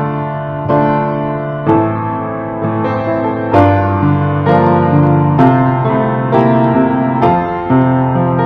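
Piano music, a slow piece with chords struck about once a second.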